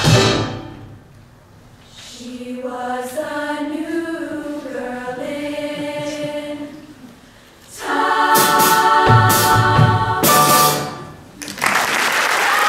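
Women's choir singing the end of a song: a softer sustained passage, then a loud held final chord with a few sharp hits, cut off about eleven seconds in. Audience applause breaks out just after.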